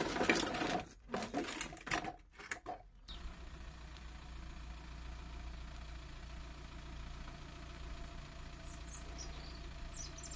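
Metal car-body parts clattering and knocking as they are handled, for about three seconds. Then a steady low background hum, with a few faint bird chirps near the end.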